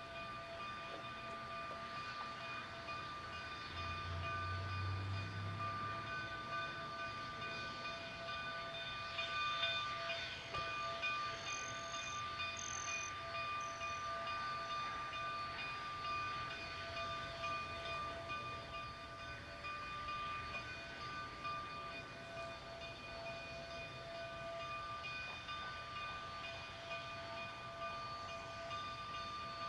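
K-36 steam locomotive No. 484 approaching with its train in the distance, a low rumble that swells a few seconds in, under a steady high-pitched whine.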